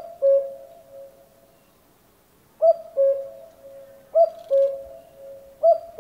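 Common cuckoo calling its two-note, falling "cuck-oo" four times: once right at the start, then after a pause of about two seconds, three more calls about a second and a half apart.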